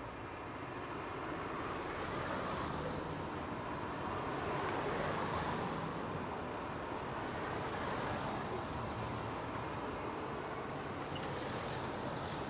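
City street traffic noise: a steady hiss of passing cars that swells and eases a few times.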